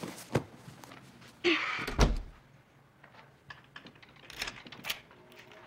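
An interior door closing with a thud about two seconds in, then a few light clicks as its lock and handle are turned.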